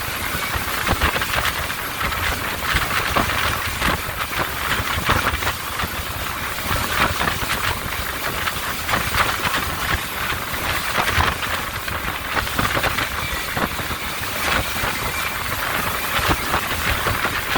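Speedboat running at speed: a steady rush of water and wind, with a low engine rumble and many short irregular knocks as the hull hits the waves.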